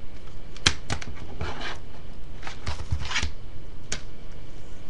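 Plastic DVD cases being handled: a few sharp clicks and knocks, with two short stretches of rubbing and rustling between them.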